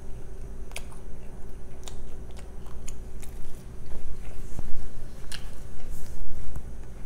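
A person chewing food with the mouth closed, close to the microphone, with a few soft mouth clicks scattered through it.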